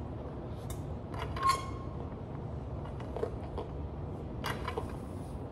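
Loaded barbell and bench creaking and clinking through a set of spider curls, with two short sharp breaths about three seconds apart, the first with a brief metallic ring. Under it runs a steady low hum of gym fans.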